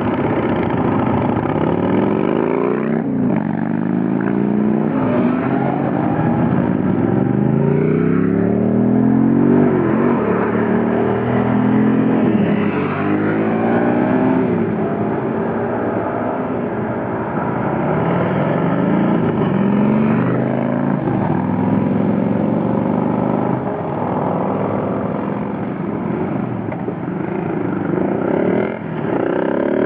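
A group of motorcycles pulls away one after another and accelerates up the road. Several engines overlap, each rising in pitch through a gear and dropping back at every shift, again and again.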